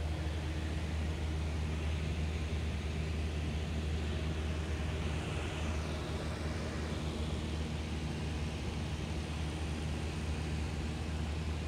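Steady engine drone with a strong low hum and a wide rushing noise, unchanging in pitch; a hiss swells and fades around the middle.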